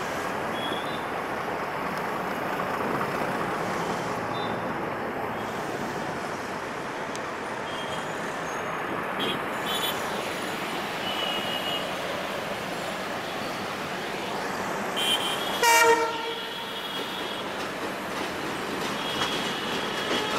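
Steady rumble of road traffic and an approaching diesel train, with a few short high toots scattered through. About three quarters of the way in comes one short, loud horn blast from the ALCO WDM-3A diesel locomotive.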